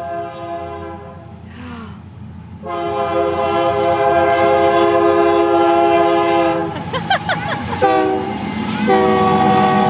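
Train horn sounding in blasts over the rumble of a passing train: two long, one short, then another long, the grade-crossing pattern.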